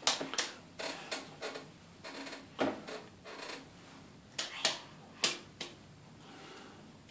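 A toddler's wet, soapy hands clapping together and slapping at bath foam and water: about a dozen short, sharp, irregular smacks, with quiet gaps between them.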